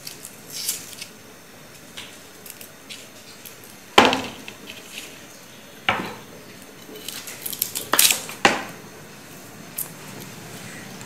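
Garlic cloves being peeled by hand, the dry papery skins crackling and rustling, with four sharp knocks, the first the loudest, about four, six, eight and eight and a half seconds in.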